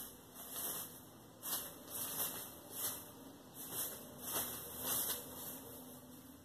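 Shredded newspaper strips rustling and crackling as a cat rolls and paws through the pile, in about ten irregular bursts.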